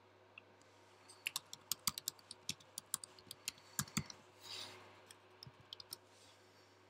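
Computer keyboard keys tapped in quick succession, about four or five clicks a second, then a short soft rustle and a few more taps near the end.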